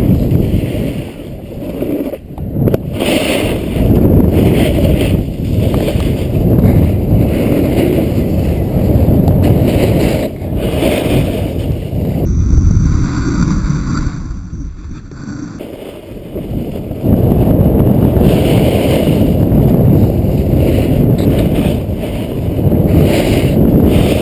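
Wind buffeting an action camera's microphone as the wearer slides down a snowy slope, with a low rushing and scraping of snow underfoot. It eases for a few seconds past the middle, then picks up again.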